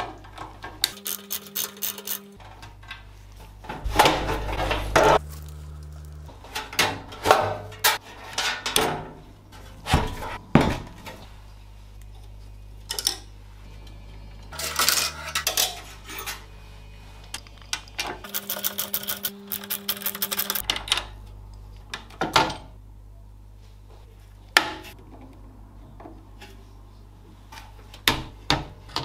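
A desktop PC's steel case being taken apart by hand: a screwdriver turning case screws and irregular metal clicks, clinks and knocks as parts are handled and lifted out, some in quick runs.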